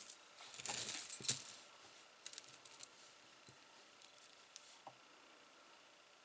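Metal costume jewelry jingling and clinking as it is handled and sorted: a burst of jangling in the first second and a half, then a few light clicks.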